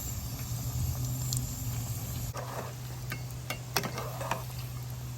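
Bread rolls frying in hot oil, a steady sizzle, with a few light clicks and crackles around the middle.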